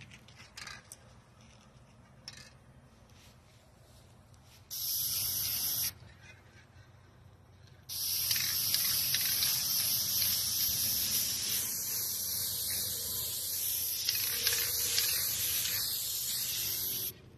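Aerosol spray paint can spraying: a burst of about a second, about five seconds in, then a steady hiss of about nine seconds that cuts off suddenly near the end.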